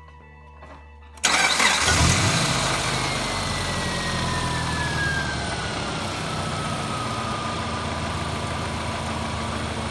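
Subaru EJ25 SOHC flat-four engine starting about a second in and settling into a steady idle, with a faint whine that falls slowly in pitch. There is no belt squeak: the squeaking belt, which the owner blamed on the alternator, has been removed.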